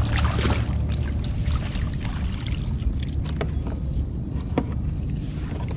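Water splashing and streaming off a rubber landing net as a redfish is lifted out of the water beside a kayak. Splashes are heaviest near the start, over a steady low rumble.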